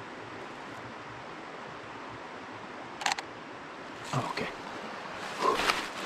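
Steady rush of river water, with a DSLR shutter's quick double click about three seconds in. Scattered rustling and handling knocks follow in the last two seconds.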